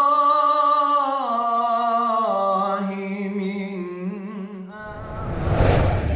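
A young man singing an Islamic ibtihal (devotional supplication) solo and unaccompanied, drawing out one long ornamented phrase that wavers as it ends. About five seconds in, a rising whoosh and music from a TV channel ident take over.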